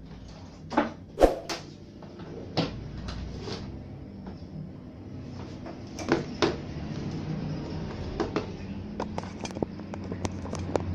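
Handling noises on a workbench: a few sharp knocks and clicks as tools and a digital multimeter are picked up and set down, then a quicker run of small light clicks near the end.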